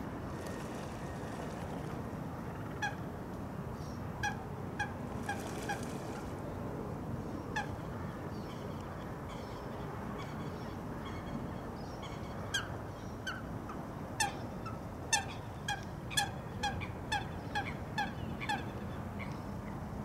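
Waterbirds calling: short, sharp, slightly falling calls, a few singly and in a quick run of four early, then a busier string of them in the second half, over a steady low background rumble.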